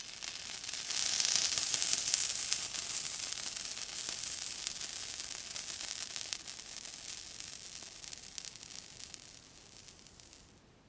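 Water sizzling on a hot surface: a crackling hiss that swells within the first couple of seconds, then slowly dies away and stops near the end.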